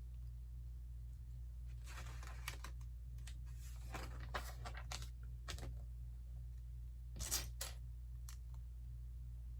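Plastic LEGO pieces being handled and snapped together: scattered sharp clicks and short rustling scrapes, with a pair of louder clicks about seven seconds in, over a steady low hum.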